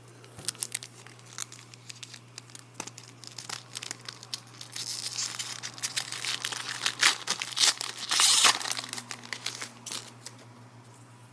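A trading-card pack wrapper being torn open and crinkled by hand: scattered crackles at first, building into continuous rustling and tearing, loudest between about 7 and 8.5 seconds in.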